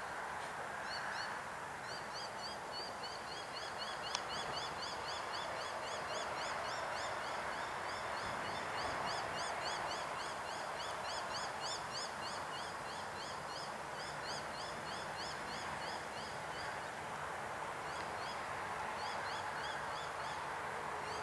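Two Aurizon 5000 class diesel locomotives hauling a loaded coal train approach as a steady rumbling noise. Over it runs a long, rapid series of high, rising chirps that pauses briefly near the end.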